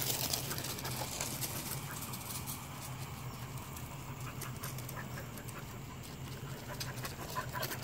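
Light, scattered crunching of footsteps on gravel, over a faint steady low hum.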